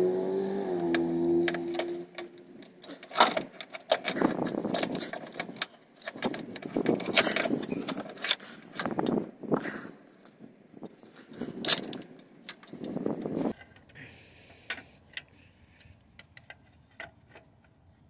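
Metal clinks and rattles of a tensioner and its bolt being handled and fitted by hand against an engine timing cover, with gloved hands rustling. Clicks come thick and fast for several seconds, then thin out to a few faint taps near the end.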